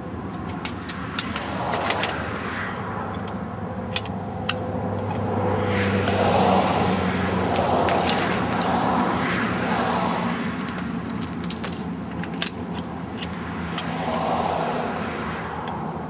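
Sharp clicks and knocks of plastic irrigation fittings being handled and snapped together on a riser. Behind them, a steady low engine hum with a rushing noise that grows louder in the middle and again near the end.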